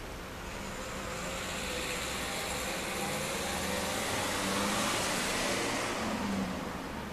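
A road vehicle passing by: a rushing noise that swells over several seconds, peaks about five seconds in, and fades near the end.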